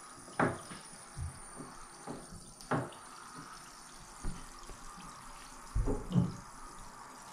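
A hand swishing and splashing in bathtub water, with irregular short sloshes. The loudest come as a pair about six seconds in.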